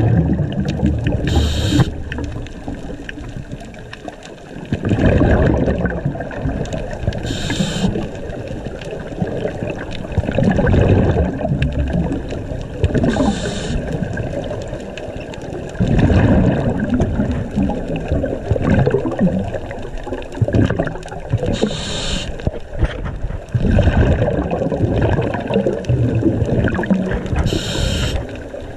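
A scuba diver breathing through a regulator, heard underwater: a short hiss of inhalation about every six seconds, each followed by rumbling, gurgling bursts of exhaled bubbles.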